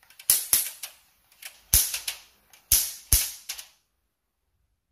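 An electric mosquito racket's high-voltage grid arcing to a screwdriver held against the mesh: a series of about seven sharp, loud spark snaps, irregularly spaced, over the first three and a half seconds. The racket now runs on a replacement 3.7 V lithium cell and gives a strong spark.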